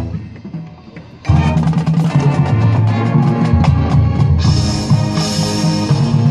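High school marching band with front-ensemble percussion playing live. A low hit dies away, then the full band comes in loud about a second in and holds sustained chords.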